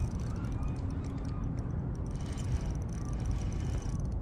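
Steady low rumbling outdoor noise, with a few faint, short rising chirps in the first second.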